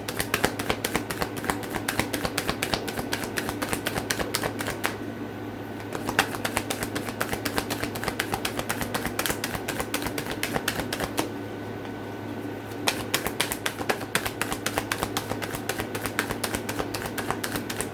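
Tarot cards being shuffled by hand: a fast, continuous run of card clicks and flicks that pauses briefly twice, over a steady low electrical hum.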